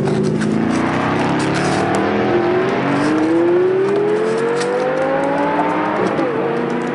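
Recorded engine-revving sound from a Porsche Panamera toy car's sound chip: the engine note climbs steadily in pitch for about six seconds, dips briefly and settles into a steady higher note.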